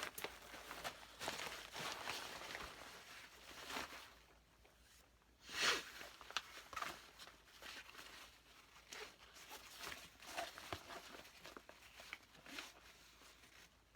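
Faint rustling and light knocks of things being handled, with one louder rustle about six seconds in.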